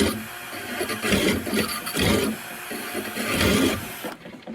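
Electric drill spinning a sharpening stone against a lawnmower blade, a harsh grinding that surges and eases in uneven passes about once a second. The grinding cuts off about four seconds in as the drill stops.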